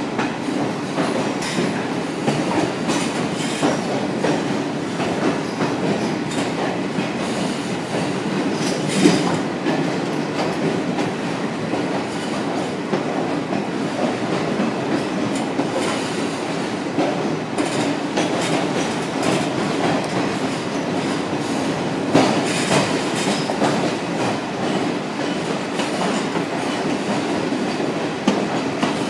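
Passenger train running on rails inside a tunnel, heard from an open coach doorway: a steady rumble of wheels on track with running clatter and a few sharper clanks, loudest about a third of the way in and again past three quarters.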